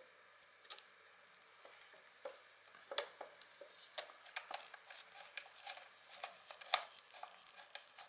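Small screwdriver unscrewing a tiny screw from the battery-compartment cover of a plastic desk thermometer, giving faint irregular clicks and scrapes of metal on the screw and the plastic case. The clicks are sparse at first and come thicker from about two seconds in.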